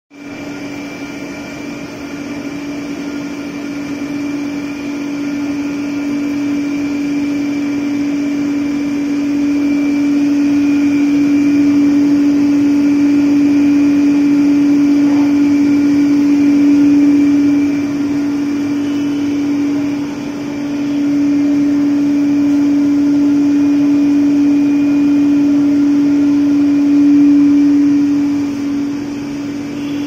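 Electric gear motors driving the stirrers of steam-jacketed mawa kettles, running with a steady hum and a faint high whine while the milk is stirred.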